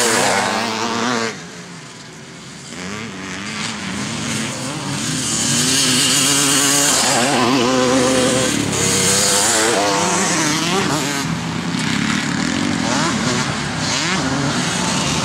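Vintage twin-shock motocross bikes racing past. The engines of the first bikes fade about a second in. Then another bike approaches and passes, loudest about halfway through with its revs rising and falling through the corner, and more bikes keep running on afterwards.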